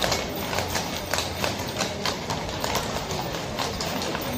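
Horses' hooves clip-clopping at a walk, a quick, irregular run of hoof strikes that overlap like several horses going by.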